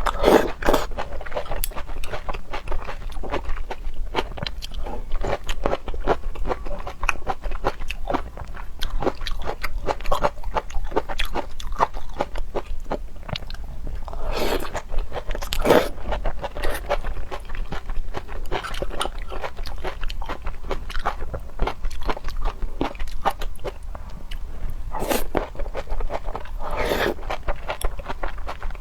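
Close-up chewing and crunching of shrimp and octopus, with dense wet clicks throughout and a few louder bites.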